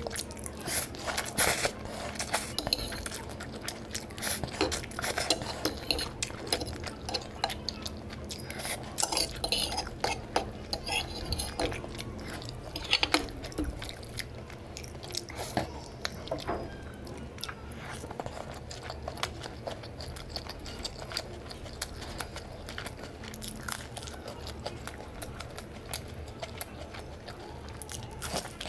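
Close-miked eating sounds: chewing and smacking on spicy noodles and a momo, with fork clinks against a plate in the first seconds and a bite into a samosa at the end.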